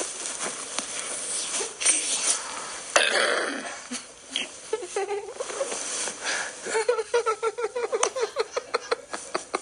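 A man laughing helplessly: wheezing, breathy gasps and squeaks, turning in the last few seconds into a fast run of high-pitched giggles.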